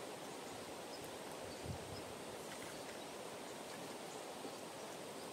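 Steady rush of a fast mountain stream, with one soft low thump a little under two seconds in.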